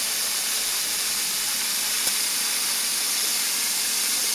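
Live steam locomotive hissing steadily, with no exhaust beat, and one faint click about two seconds in.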